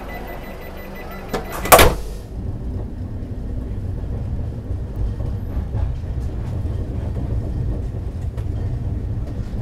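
A train's automatic sliding door shuts with a loud thud about two seconds in. After that the coach runs with a steady low rumble as the train pulls out.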